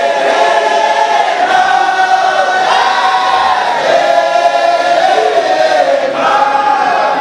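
A large group of men chanting together, a Sufi dahira chant sung in unison, with long sustained lines that bend up and down in pitch.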